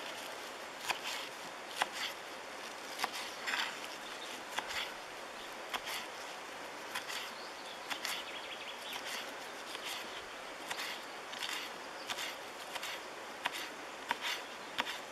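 Small knife slicing through crisp green onion stalks held over a bowl: short, irregular crunchy cuts, roughly one or two a second, over a steady background hiss.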